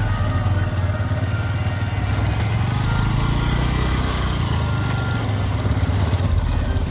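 Motorcycle riding along a road: steady engine and road noise with a heavy low rumble.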